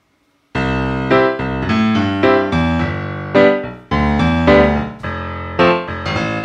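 Background music led by a piano, playing struck chords and melody notes, starting about half a second in.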